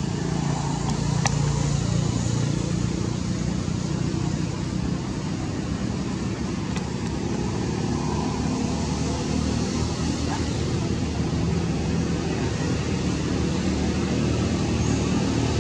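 A steady low mechanical rumble, like motor traffic, with a faint click about a second in.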